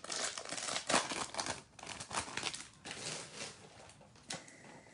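Foil trading-card pack wrapper crinkling as it is torn open by hand, in irregular crackles that die down after about three and a half seconds, with one last crackle near the end.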